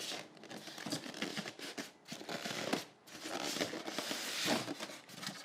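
Cardboard box and styrofoam packing being handled and pulled apart: irregular rustling, scraping and light knocks, busiest in the second half.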